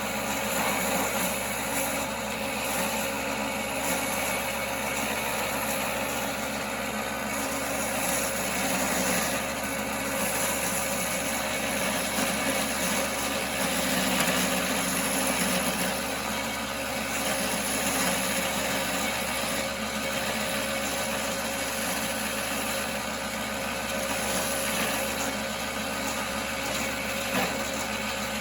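1939 Pow-R-Kraft wood lathe running steadily at speed, turning a piece of firewood.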